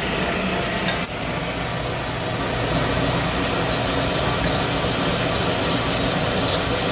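Connecting-rod honing machine running steadily, its mandrel turning inside the big-end bore of an H-beam connecting rod held by hand to hone the bore to size.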